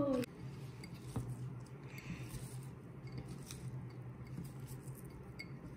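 Faint rustling and a few light clicks as chopped apple, chocolate and walnut pieces are mixed by hand in a small glass bowl, over a steady low hum.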